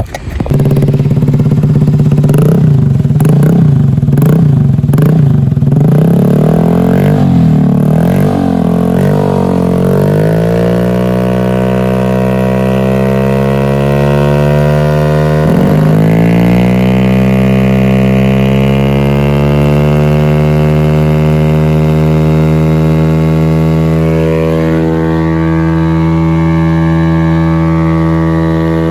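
Motorcycle engine through an SC Project exhaust, revved in quick bursts for about ten seconds, then held at a steady, slowly rising drone with one brief dip and recovery midway.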